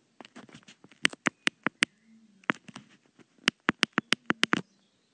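Typing on a touchscreen on-screen keyboard, its key-click sounds in two quick runs of sharp clicks a few per second, with a short pause between them.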